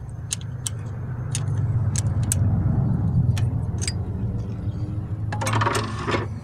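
Sharp metallic clicks of a 10 mm wrench and screwdriver on a valve adjuster locknut and rocker arm of a Honda SOHC VTEC head, as the locknut is loosened to set valve clearance. Under them runs a steady low engine-like rumble, and near the end comes a short rattling scrape.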